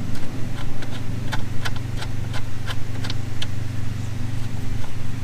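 A run of sharp, irregular metallic clicks, about ten of them between one and three and a half seconds in, from hand-tool work on an outboard's wiring terminals. Under them runs a steady low hum.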